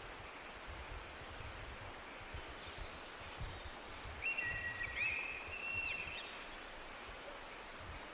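Outdoor background noise with irregular low rumbles, and a bird giving a few short, high whistled notes about four to six seconds in.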